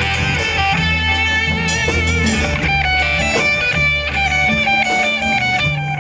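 Electric guitar played through a Marshall amplifier: a lead line of held notes, some bent and sung out with vibrato, over changing low bass notes.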